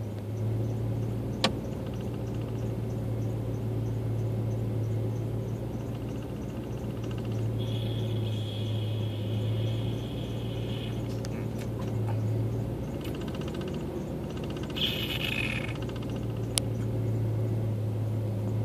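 Pickup truck engine idling, a steady low hum heard from inside the cab, with a sharp click about a second and a half in and another near the end.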